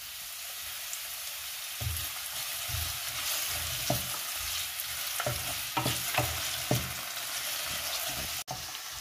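Sliced potatoes frying in olive oil in a pan, with a steady sizzle. From about two seconds in, they are stirred with a spatula, giving soft knocks and scrapes against the pan.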